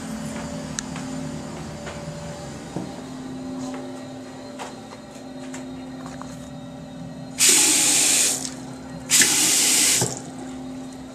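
Chrome two-handle bathroom sink faucet turned on twice, water rushing into the basin for about a second each time, over a steady low hum.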